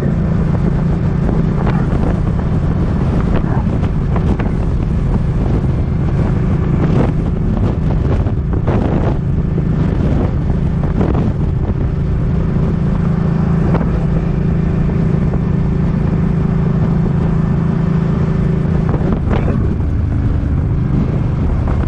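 Suzuki Boulevard M50 V-twin engine running at a steady, unhurried cruise, with gusty wind buffeting the microphone.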